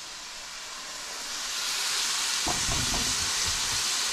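Diced onions frying in oil in a stainless steel pan, a steady sizzle that grows louder about a second in. From about two and a half seconds in, a wooden spoon stirs and scrapes the onions through the sizzle.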